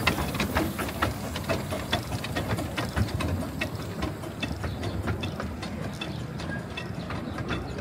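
Miniature steam train on the move: wheels and open carriages rumbling along the track, with frequent irregular clicks and knocks.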